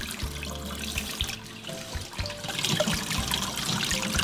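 Water from a kitchen tap running and trickling over a tilapia being rinsed in a stainless steel sink, with background music underneath.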